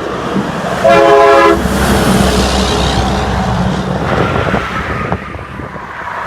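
Semi-truck air horn giving one short, loud blast about a second in, then the truck's engine and tyre noise as it passes.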